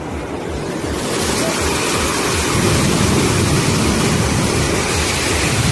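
River water rushing through a dam's sluice gate under high pressure, falling and churning in white water. The steady rush swells about a second in and then holds loud.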